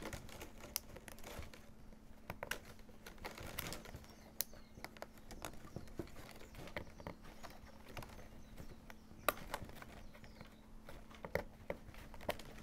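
Plastic baling straps being bent, slid and tucked by hand into a woven basket's edge: scattered, irregular light clicks and crinkles.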